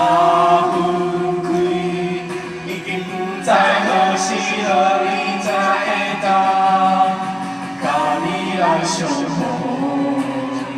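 Singing: voices holding long notes of a slow song, with fresh phrases starting about a third of the way in and again near the end.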